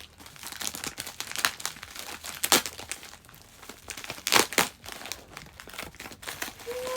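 Mail package being crinkled and torn open by hand: irregular rustling and crackling of the packaging, with louder rips about two and a half and four and a half seconds in.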